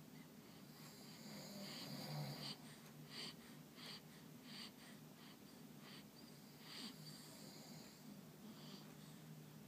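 Sleeping newborn baby's faint snuffly breathing and soft little snores, short hissy breaths coming irregularly, a little louder about two seconds in.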